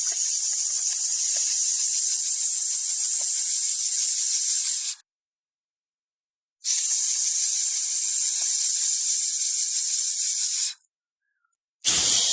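Imitated snake hissing: two long, steady hisses of about four to five seconds each, with a pause between them. A sharper, fuller burst begins right at the end.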